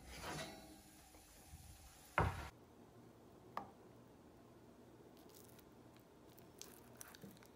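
A single loud thump about two seconds in as the baked dish is taken from the oven, then a sharp click and faint soft clicks and squishes from a plastic spatula pushing into the cheese-topped scalloped potatoes.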